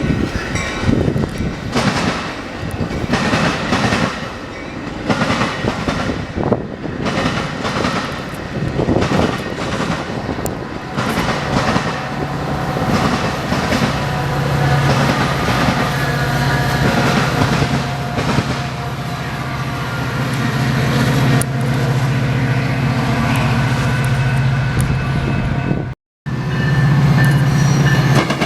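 Passing train: the wheels clack rapidly over the rail joints, then from about twelve seconds in a steady low drone carries under the clacking. The sound cuts out for a moment near the end.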